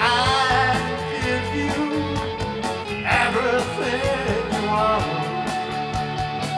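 Rock band playing live: electric guitar, electric bass and drum kit, with a steady hi-hat beat.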